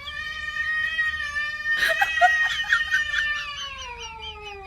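A cat giving one long, drawn-out yowl that sinks in pitch near the end, with a brief click about two seconds in.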